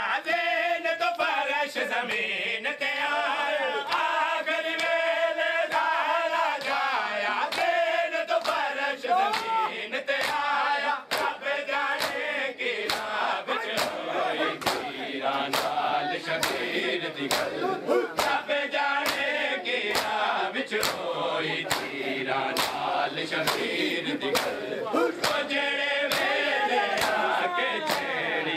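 A crowd of men chanting a noha together while beating their chests in matam, the palm slaps on bare chests landing in a steady rhythm under the singing.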